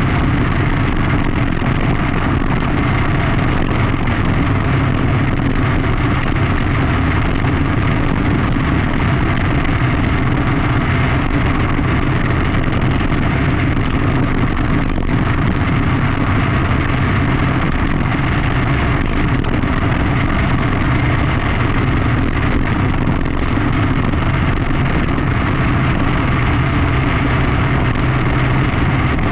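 Onboard sound of a dirt-track racing kart's engine running hard at a steady pitch around the oval, under a constant rush of noise.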